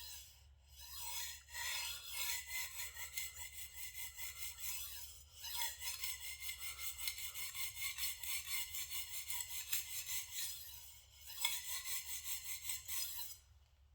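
Shigeki Tanaka 180mm gyuto kitchen knife being stroked back and forth on a sharpening stone: quick, even scraping strokes, about three a second, in several runs with short pauses between them, stopping shortly before the end.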